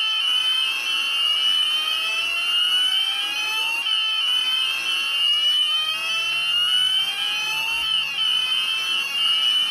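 Premier 9000 addressable fire alarm system sounding its evacuation tone: a high-pitched, rapidly repeating sweep runs continuously, with a slower rising sweep coming back about every four seconds. This is the full-evacuation stage, the tone that plays between the 'leave the building immediately' announcements.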